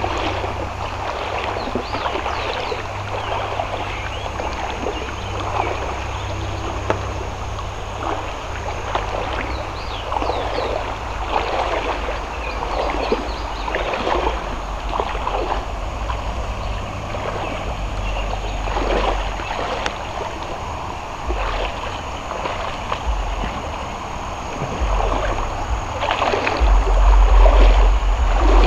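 Running water of a shallow, rocky river, with irregular small splashes. A low wind rumble on the microphone grows louder near the end.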